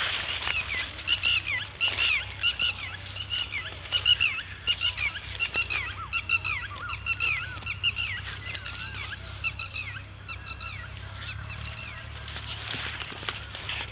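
Birds calling: a rapid run of short, sharp, falling chirps, several a second, thinning out after about nine seconds.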